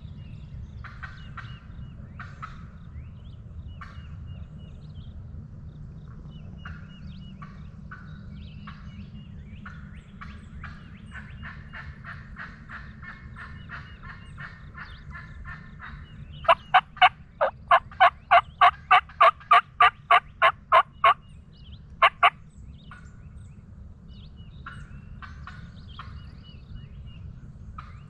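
Hen turkey yelping: a loud series of about a dozen yelps at roughly three a second, starting about halfway through, then two more a second later, with small birds chirping faintly behind.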